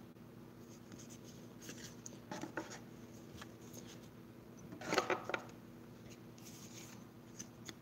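Pokémon trading cards handled and slid across a playmat: soft rustles and light taps, a few at about two and a half seconds and the loudest cluster about five seconds in, over a faint steady hum.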